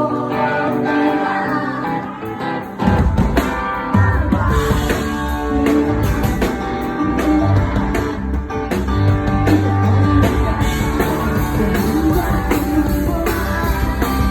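Live pop-rock band with a woman singing: a guitar-led passage, then bass and drums come in about three seconds in and the full band plays on.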